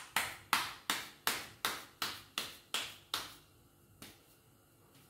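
Hands patting a ball of corn masa flat between the palms to shape a tortilla by hand: a steady run of slaps, nearly three a second, that stops a little past three seconds in.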